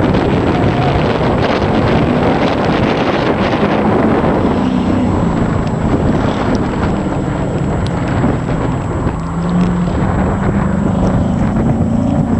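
A modified Ford Fiesta's engine running, its note shifting in pitch several times, with heavy wind noise on the microphone.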